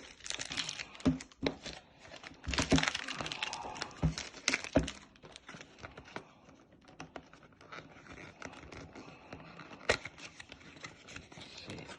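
Cardboard fragrance box being opened by hand: packaging crinkling and tearing with sharp clicks and scrapes, busiest in the first five seconds, then quieter scratching with one sharp click about ten seconds in.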